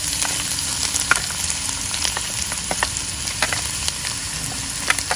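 Chopped shallots, garlic and ginger sizzling in hot oil in a wok, with scattered sharp crackles and pops, as the aromatics are sautéed until they turn golden.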